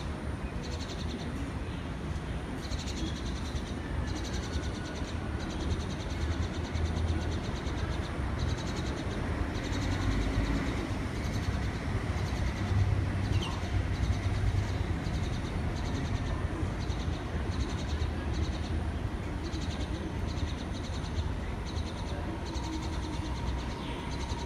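Steady outdoor city background rumble with a faint high chirping that repeats on and off.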